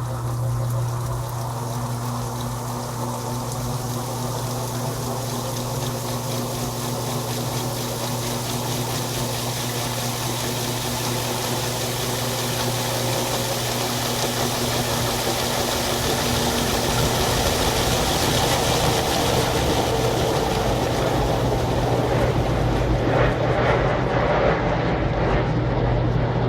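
Electrolux LTP15 top-load washing machine running mid-cycle: a steady low motor hum with a second steady tone that drops out about two-thirds through, while a fuller whooshing noise grows a little louder toward the end.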